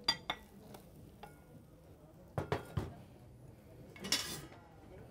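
Frying pan and plate clinking and knocking while a cooked tortilla is turned out of the pan: two sharp ringing clinks at the start, a few dull knocks about halfway, and a short hiss near the end.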